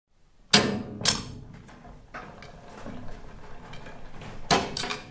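Sound effects for an animated logo intro: sharp mechanical clunks and clatter. Two loud knocks come about half a second and a second in, and another cluster of knocks comes near the end.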